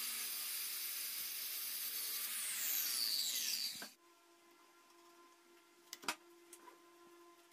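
Handheld circular saw running through plywood along a metal guide rail, with a falling whine in its last second before the sound cuts off abruptly about four seconds in. After that only a faint steady hum and one sharp click.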